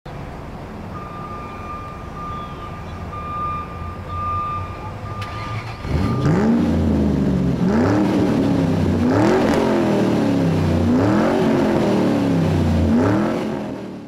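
Race-car engine sound effect: a steady idle rumble, then from about six seconds in the engine accelerates hard through the gears, its pitch climbing and dropping back several times before fading out near the end.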